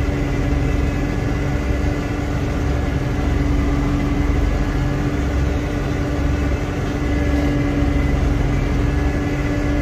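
Front-loader tractor engine running steadily, heard from inside the closed cab, with a constant hum over a low rumble.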